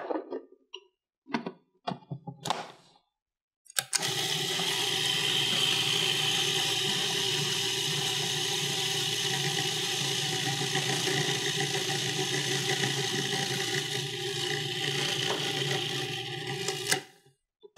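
Food processor motor running steadily, blending a thick herb pesto while olive oil is drizzled in through the feed tube. It switches on about four seconds in, after a few clicks and knocks of the lid being handled, and stops abruptly near the end.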